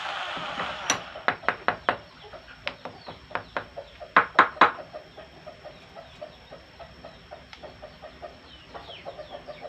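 A run of light taps and clicks, with three louder knocks in quick succession about four seconds in, and a hissing noise fading out in the first second.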